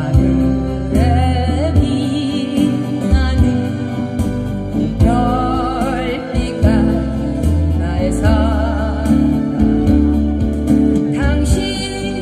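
Acoustic guitars playing with a voice singing over them, holding notes with vibrato, amplified through a PA speaker.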